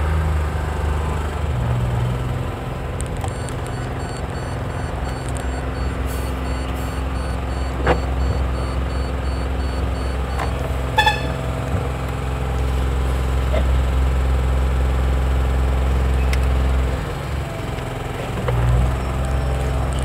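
Iveco truck's engine running inside the cab while the truck is manoeuvred, its rumble dipping and then picking up again near the end. Faint repeated high beeping sounds for several seconds, and a short beep comes about eleven seconds in.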